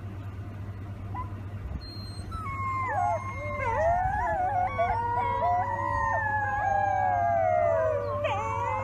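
Wolf pups howling together, several high, wavering voices overlapping. The chorus swells in about two and a half seconds in, over a steady low hum.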